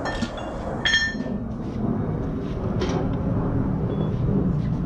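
Hand tools clinking in a metal toolbox drawer as they are rummaged through: two short ringing metallic clinks in the first second, then a few faint clicks over a steady low hum.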